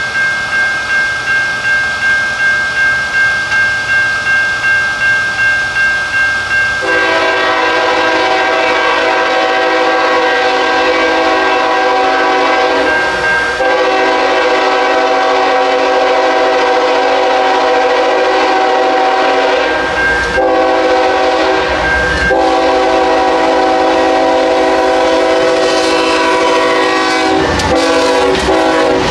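Grade-crossing bell ringing about twice a second, then from about seven seconds in the lead locomotive, Norfolk Southern's Southern heritage unit 8099, sounds its multi-chime air horn for the crossing: two long blasts, a short one and a long one. Near the end the train reaches the crossing and passes, its wheels clacking over the rail joints.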